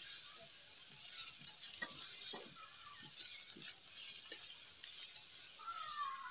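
Potatoes and okra sizzling in hot mustard oil in a wok-like kadai while a spatula stirs them, scraping and knocking against the pan now and then.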